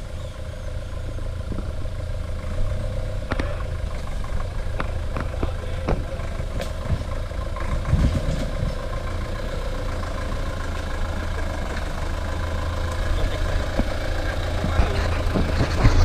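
Toyota Bandeirante 4x4 pickup's engine running at low speed as it crawls over a rocky track, with scattered knocks and clicks, growing louder near the end as it comes close.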